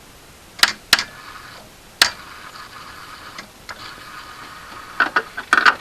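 Sharp clicks, two about a second in, one at two seconds and a quick cluster near the end, over a faint steady hiss: a failed start attempt on a VAZ-2111 16-valve engine that does not crank, its battery terminal making poor contact.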